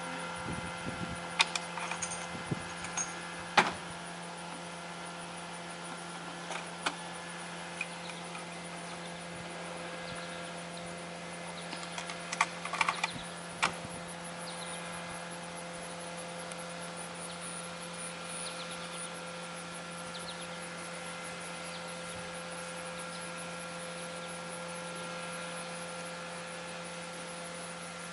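A steady electrical-sounding hum, with a few small sharp clicks and taps in the first few seconds and a short cluster of them about twelve seconds in.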